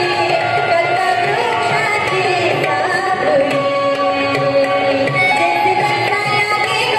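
Music: a melody with sliding, bending pitch over a steady percussion rhythm.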